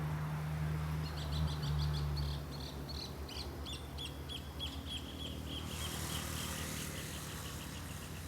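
A bird calling a long, fast series of sharp chirps that drops slightly in pitch and slows toward the end. Under the first two seconds a low steady hum fades out.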